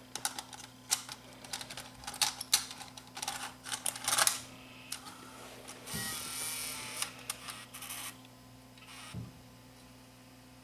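An 8mm video cassette being handled and pushed into the Sony EV-C3 VCR's front-loading cassette holder: a run of plastic clicks and knocks, then the loading mechanism's motor whirs for about two seconds, followed by a single soft thump.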